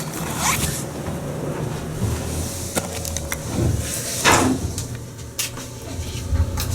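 Dover hydraulic elevator car in motion: a steady low rumble with a few sharp clicks, and two creaks that drop in pitch, about half a second in and again about four seconds in.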